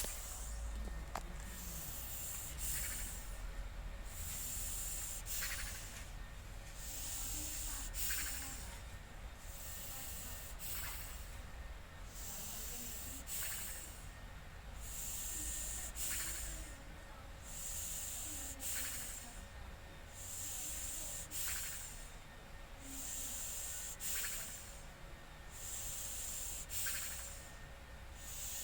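A puppy snoring in its sleep: an even, hissing snore breath about every two and a half seconds.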